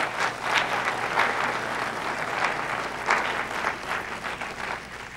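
Audience applauding, a dense patter of many hands clapping that fades away toward the end.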